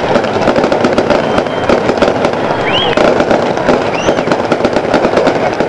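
Fireworks display going off: a dense, continuous run of rapid crackling and popping from bursting aerial shells, with two brief whistles about a second apart midway.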